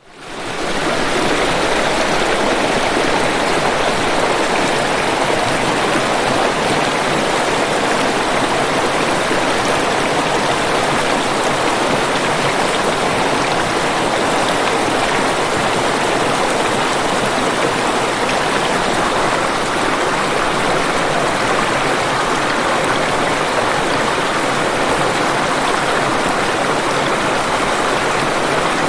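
Waterfall water rushing steadily, an even hiss-like roar that fades in quickly at the very start and then holds constant.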